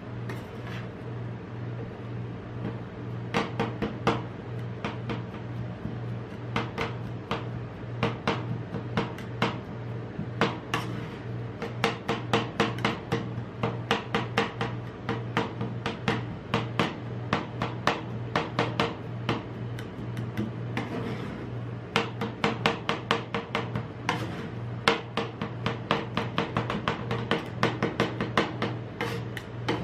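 Two metal spatulas chopping blackberries into ice cream base on a steel cold plate: quick runs of sharp clicking taps as the blades strike the plate, with some scraping, over a steady low hum.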